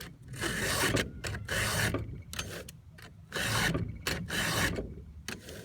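Chainsaw chain being hand-sharpened with a file: a series of about six or seven rasping file strokes across the cutter teeth, a little under a second apart, with short gaps between them.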